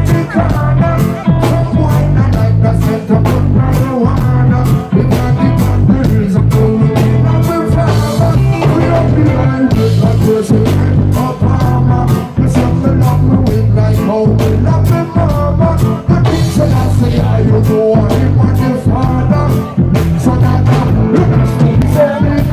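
Live reggae band playing with heavy bass and a steady beat.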